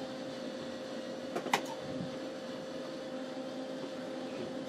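Steady background hum with a constant tone, and a few quick clicks about a second and a half in.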